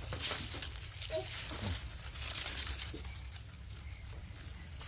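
Irregular crackling and rustling of fodder in a cow's feed trough as the cow feeds, over a steady low hum.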